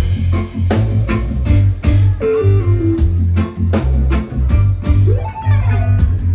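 Live rock band playing without vocals: guitar over bass guitar and drum kit, with a falling run of notes about two seconds in and a rising glide about five seconds in.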